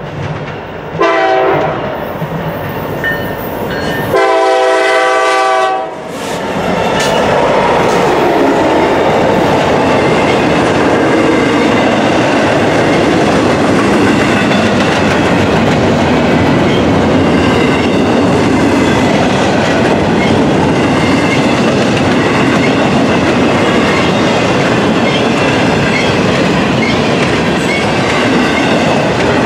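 Locomotive air horn on a Norfolk Southern EMD SD70ACU sounds a short blast, then a long blast about 4 seconds in, for the grade crossing. The diesel locomotives then pass, and a double-stack intermodal container train rolls by with a steady rumble of wheels and clickety-clack on the rails.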